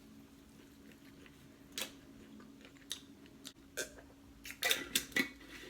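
Close-up eating sounds: chewing and mouth clicks over a faint steady hum, with a few sharp separate clicks, then a quick run of clicks and clatter near the end.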